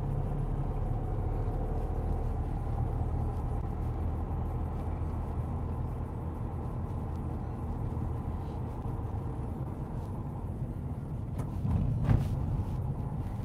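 Car driving along a road, heard from inside the cabin: a steady low rumble of engine and tyres. A brief louder bump comes near the end.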